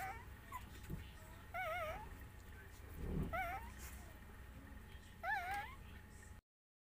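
Young puppy whimpering: four short, high, wavering whines about every two seconds, with a soft low bump about three seconds in.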